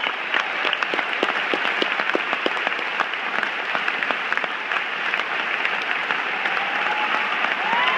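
Large audience applauding steadily in a theatre, a dense patter of many hands clapping.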